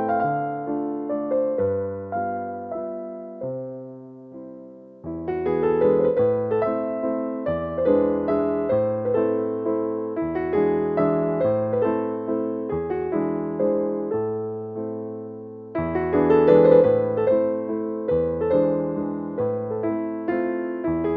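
Background piano music: a gentle melody in repeated phrases, with one phrase dying away about four seconds in before the next begins.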